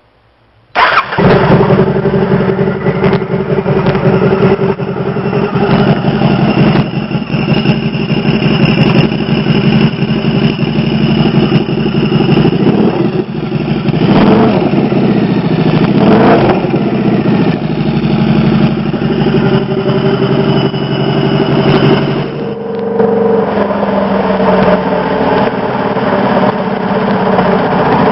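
Turbocharged Harley-Davidson Screamin' Eagle V-Rod's liquid-cooled V-twin engine starting with a sudden catch about a second in, then running loud and steady, its note changing about three quarters of the way through.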